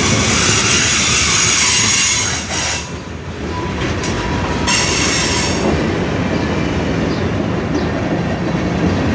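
Freight train's covered hopper cars rolling past close by: a continuous rumble of steel wheels on rail, with a thin steady wheel squeal through the middle.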